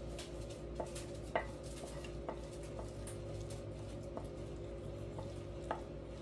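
A wooden spoon scraping thick peanut butter fudge mixture out of a metal saucepan, with about eight light knocks of spoon and pan scattered through. A steady low hum lies underneath.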